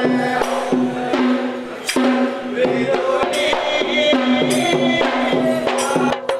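Music: a steady held drone note under rhythmic drum and percussion strokes.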